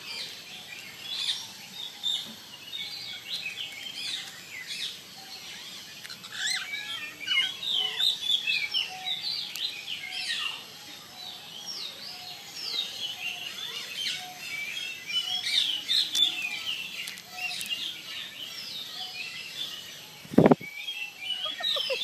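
Many birds chirping and twittering over one another in an aviary, in quick short calls. About twenty seconds in there is a single loud thump.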